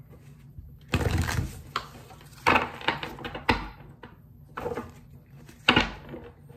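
A deck of tarot cards being shuffled by hand: several short bursts of rapid card riffling and clatter.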